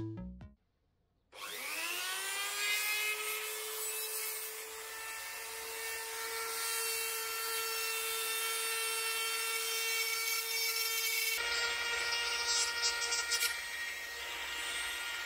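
Small handheld electric grinder spinning up with a rising whine about a second in, then running at a steady high whine with a scraping rasp as it grinds out the opening of a cable connector. The sound changes abruptly about eleven seconds in.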